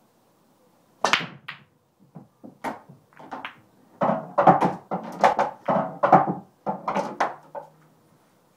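English pool break shot: a sharp crack about a second in as the cue ball smashes into the rack, then a run of ball-on-ball clacks and cushion knocks, with balls dropping into pockets and rolling through the table.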